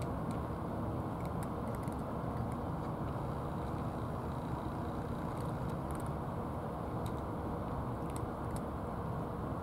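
A steady low outdoor rumble throughout, with faint, sparse clicks of a tabby cat crunching dry food from a plastic tray.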